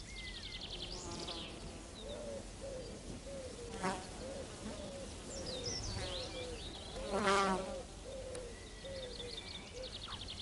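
Bumblebees buzzing at flowers, one buzz swelling loud about seven seconds in, with birds chirping behind.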